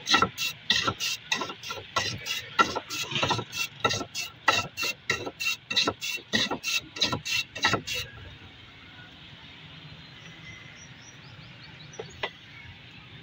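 A block of ice pushed by hand back and forth over a blade set in a wooden plank, shaved in quick rasping strokes about three a second that stop about eight seconds in. Two short clicks follow near the end.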